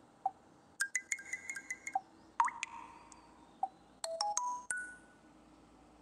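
Android phone notification tones previewed one after another from a tone picker: three short electronic chime jingles. The first is a quick run of bright notes, the second a single swooping pluck that rings out, and the third a few fast notes.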